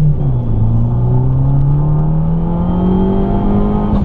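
2013 Fiat 500 Abarth's turbocharged 1.4-litre four-cylinder engine heard from inside the cabin, pulling under acceleration. Its note dips at the start, then climbs steadily in pitch as the revs build.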